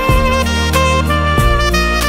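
Instrumental background music: a pitched lead melody moving between held notes over a bass line and a steady beat.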